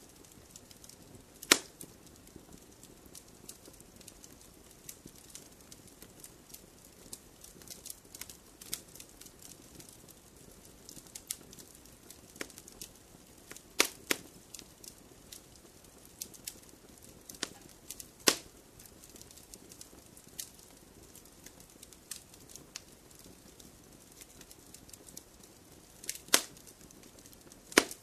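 Fireplace fire crackling: frequent small clicks over a soft hiss, with a handful of louder pops scattered through, two of them close together near the end.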